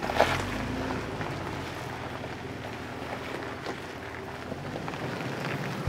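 Jeep Wrangler TJ engine running at low revs as it crawls slowly over a rock, with a few light knocks of the tyres and chassis on stone.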